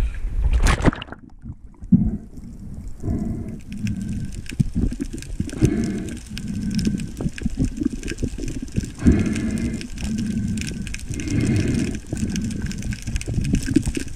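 Muffled underwater sound from a speargun diver's camera: water rushing against the housing in repeated low swells as he kicks down along the reef, over a fine steady crackle. It opens with surface water splashing, which cuts out about a second in as the camera goes under.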